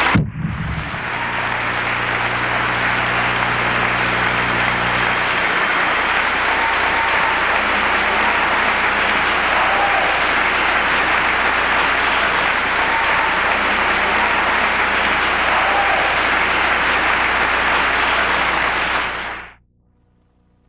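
Audience applauding steadily, then cutting off abruptly near the end.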